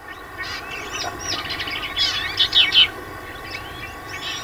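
Many birds calling at once, with overlapping chirps and whistles that are busiest and loudest a couple of seconds in, over a faint steady high hum.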